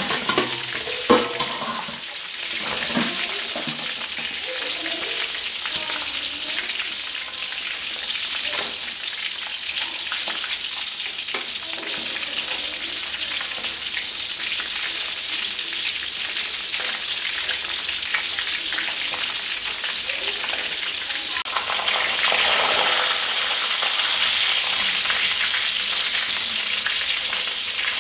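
Fish frying in hot oil in a steel wok: a steady sizzle, with a few metal knocks in the first second or so as the aluminium lid is lifted off with tongs. The sizzle grows louder about three-quarters of the way through.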